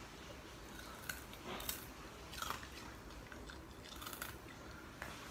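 Boston terrier biting and chewing a crisp dried pollack strip held in a hand, with several faint, irregular crunches.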